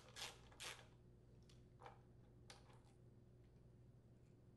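Mostly near silence, with a few faint clicks and scrapes of a screwdriver's nutdriver bit turning out the small screws of a Kohler small-engine regulator rectifier. Two clicks come in the first second and a few fainter ones follow over the next two seconds.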